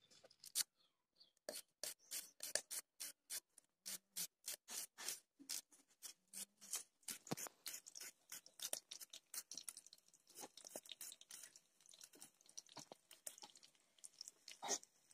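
Small shallot being sliced with a curved hand-held blade: a quick, uneven run of crisp snicks, several a second.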